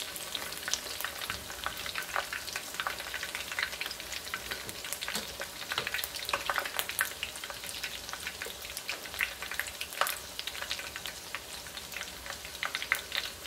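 Battered dandelion flowers frying in hot oil in a pan: a steady sizzle with constant fast crackling and popping.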